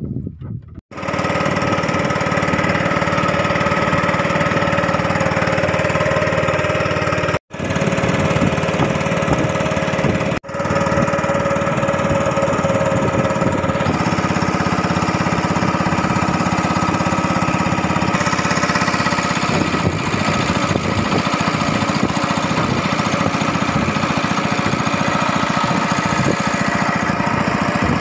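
Small engine running steadily, with a couple of brief breaks in the sound.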